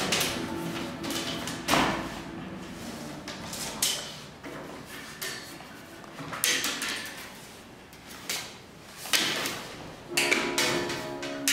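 Willow rods swishing and rustling as they are pulled through and woven between upright stakes, with several sharp swishes and knocks as the weave is worked down into place.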